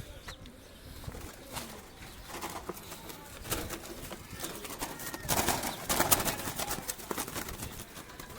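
Doves caught in a trap, moving about with scattered clicks and rustling, and a louder burst of rustling and clattering about five seconds in.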